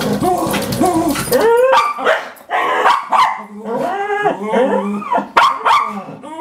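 Dogs whining over and over in wavering, pitched whines, with a few short sharp cries, excited by an opossum at their water dish.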